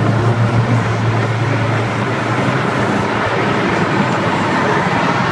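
Cammed 7.0-litre LS7 V8 of a 2008 Corvette C6 Z06 with long-tube headers, heard from inside the cabin, droning steadily at highway cruise over tyre and road noise; the drone eases about halfway through.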